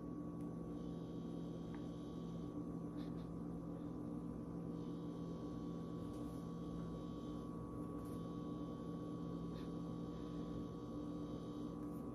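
Quiet room tone: a steady low electrical hum, with a faint high whine that switches on and off a few times.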